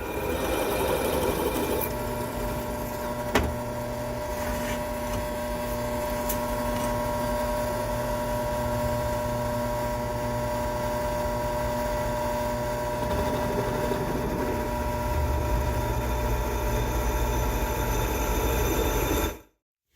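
Atlas metal lathe running steadily, its spindle turning a drill bit that bores a hole through a metal fixture plate, with a single sharp click about three seconds in. The sound cuts off abruptly near the end.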